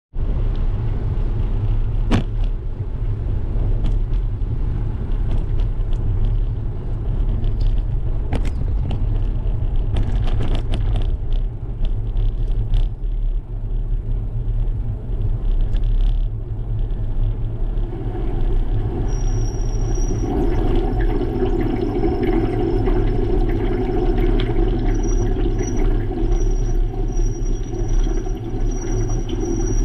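Steady low rumble of wind and road vibration on a bicycle-mounted GoPro riding over pavement, with scattered knocks and rattles from bumps. In the second half a thin, high, steady whine comes and goes.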